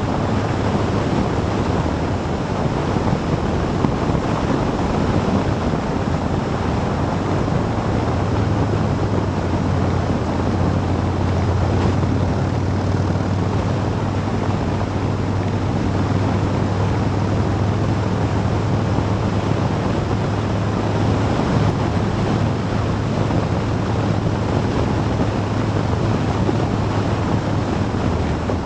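Motorcycle engine running at a steady cruising speed, a constant low hum under heavy wind noise on the action camera's microphone.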